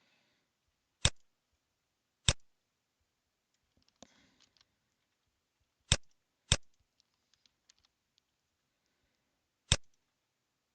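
Five sharp computer mouse clicks, spaced irregularly, with a few faint ticks in between.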